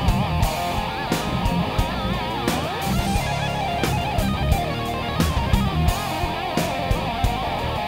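Heavy instrumental rock tune played on guitars: electric guitars with a lead line that bends in pitch, over a steady beat of sharp hits.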